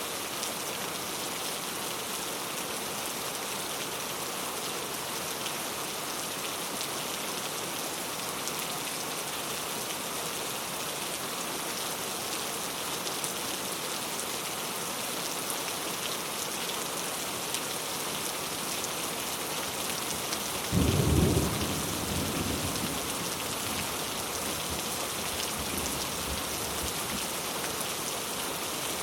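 Steady rain falling. About two-thirds of the way through comes a sudden low rumble of thunder, the loudest moment, which dies away over several seconds.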